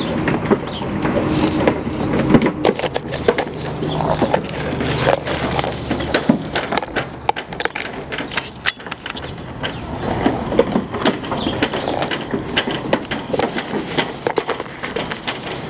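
Goats feeding at close range: a dense run of sharp clicks, crunches and knocks, with a low steady hum under the first six seconds or so.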